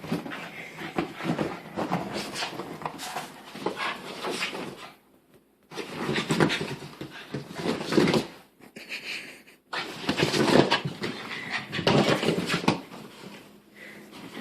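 Boston terrier making strange noises in three long bouts with short breaks between; the owner takes them for her protest at wearing a new sweater.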